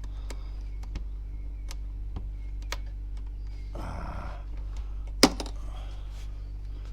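Light clicks and a short rustle from handling the freezer compartment of a 12 V portable fridge-freezer, with one sharp click about five seconds in, over a steady low hum.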